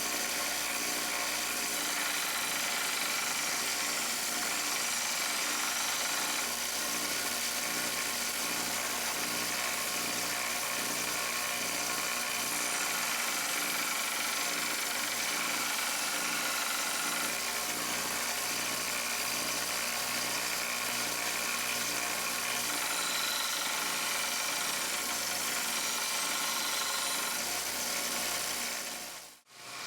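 Belt grinder motor running steadily while the edge of a 5160 steel cleaver is ground on the abrasive belt; the sound drops out briefly near the end.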